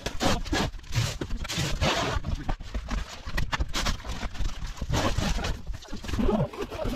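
Cardboard boxes and large metal food tins being lifted and shifted about inside a van's cargo area: irregular knocks, thuds and scrapes on the van's floor.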